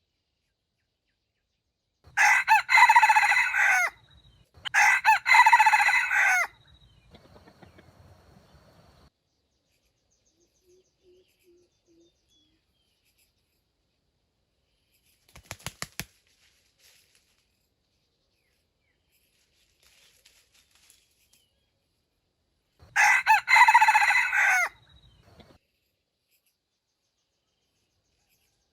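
A rooster crowing three times: two crows almost back to back, then a third after a long pause, each about two seconds long. About halfway through there is a short cluster of sharp knocks.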